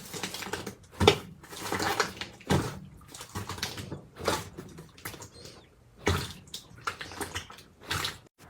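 Slime being worked by hand, squelching wetly in irregular bursts with several sharp sticky pops.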